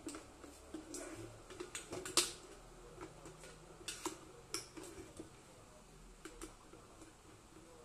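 Clicks and light metallic knocks from a stainless steel Scarlett electric kettle being handled and set on its power base, the loudest about two seconds in.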